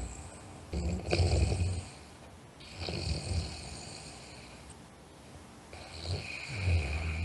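A sleeper snoring: three snores in about seven seconds, each a low rattle with a breathy hiss. The first, about a second in, is the loudest.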